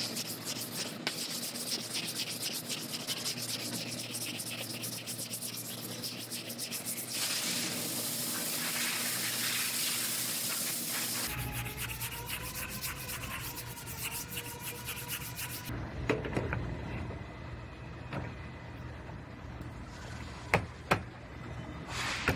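Sandpaper on a hand sanding block rubbing fast back and forth over cured body filler on a car's quarter panel, final block-sanding of the filler before primer. Two sharp clicks come near the end.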